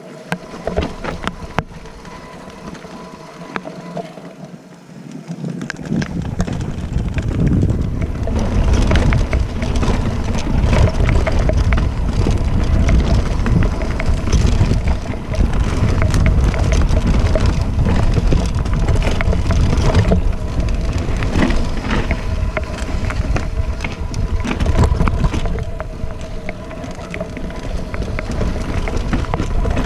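Enduro mountain bike riding fast down a rocky dirt trail, heard from the bike: wind buffeting the microphone, tyres crunching over dirt and stones, and the bike's chain and parts rattling and knocking over the bumps. Quieter at first, getting much louder about six seconds in as the speed picks up.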